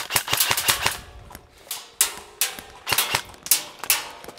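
Airsoft rifles firing: a quick burst of about ten sharp shots in the first second, then single shots every half second or so.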